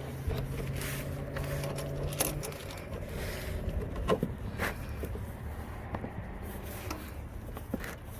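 Oil filter being worked loose with a filter wrench under a car: scattered sharp metal clicks, knocks and scrapes of the tool and filter. A low steady hum sounds for the first couple of seconds, then stops.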